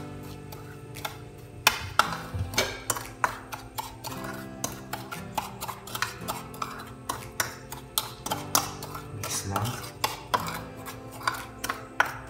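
A metal spoon stirring instant coffee and hot water in a bowl, clinking and scraping against the bowl in quick, irregular strikes, over background music.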